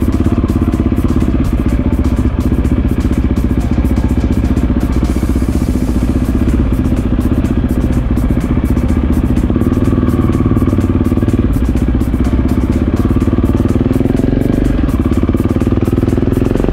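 KTM enduro motorcycle engine running at low revs while riding slowly, a steady beat of firing pulses, its pitch rising a little near the end.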